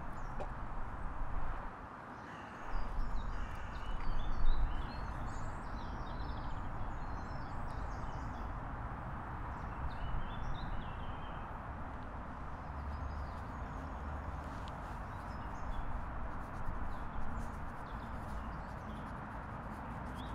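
Wind buffeting the microphone with heavy low rumbles in the first few seconds, then settling to a steady outdoor rush. Small birds chirp now and then over it.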